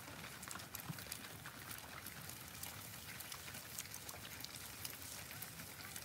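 Herd of cattle walking past, their many hooves crunching through snow in a faint, continuous, irregular patter of small clicks.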